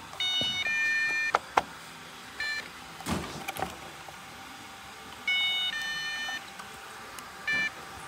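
iRobot cleaning robot playing an electronic chime: a falling two-note tone followed by a short single beep, heard twice about five seconds apart. A few sharp plastic clicks come between them as the battery compartment is handled.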